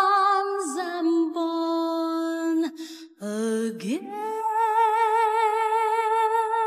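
A woman's isolated lead vocal, sung a cappella with no backing band, carries the end of the line 'within your arms, I'm born again'. She holds notes with vibrato and breaks briefly about three seconds in. Then a low note slides up into a long held, higher note with wide vibrato.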